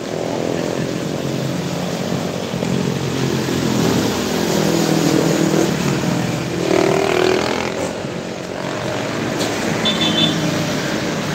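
Road traffic passing close by: cars, motorcycles and motorcycle tricycles, their engines rising and falling as each goes past. One engine sweeps up in pitch about seven seconds in.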